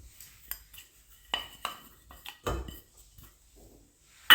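Metal kitchen utensils knocking and clinking against a cooking pan: several separate light knocks, then a loud clang near the end that rings on briefly.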